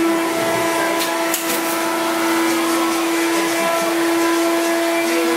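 An electric fan running steadily for ventilation, drawing welding fumes out of the room: a steady hum over rushing air.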